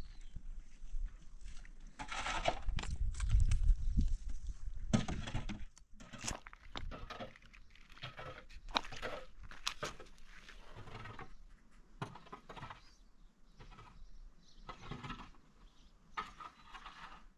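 Goats bleating, many short calls one after another, with a low rumble under the first few seconds.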